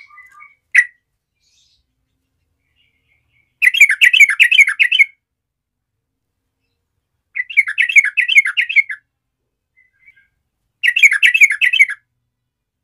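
Yellow-vented bulbul (trucukan) singing: a few soft chirps, then three short phrases of fast, rapidly repeated notes a couple of seconds apart.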